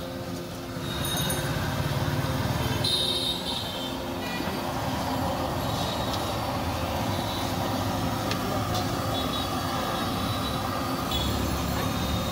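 Street traffic running on, with short horn toots now and then, over the sizzle of fritters frying in a wok of hot oil.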